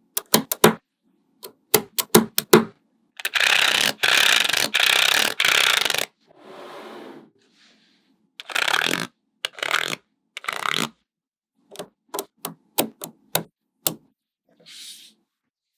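Small magnetic balls clicking sharply together in quick runs as they are snapped into place, with stretches of continuous rattling scrape between the runs. The loudest scrape lasts about three seconds, starting a few seconds in.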